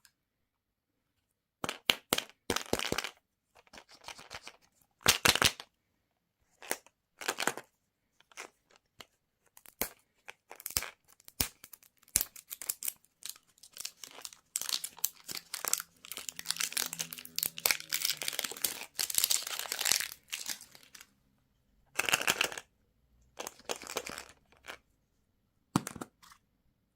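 Plastic and foil candy wrappers being torn open and crinkled by hand, in irregular bursts with sharp clicks and a longer stretch of steady crinkling about halfway through.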